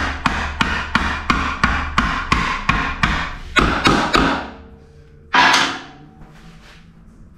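Steel hammer striking a wooden block laid over a part in a housing, in quick even blows about three a second, driving the part into place. A few heavier blows follow, then one louder clatter about five seconds in.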